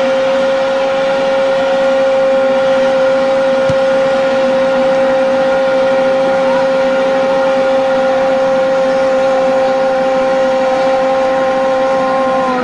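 Football commentator's drawn-out goal cry, one long "gooool" held on a single steady high note, falling off near the end, over steady background noise.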